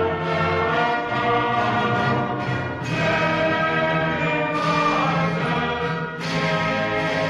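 Orchestral music with brass and choir, in long held chords that change every few seconds.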